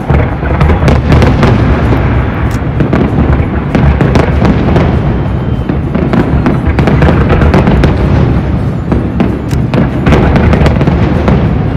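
Aerial fireworks display bursting without a break: a dense run of booms with many sharp cracks and pops among them.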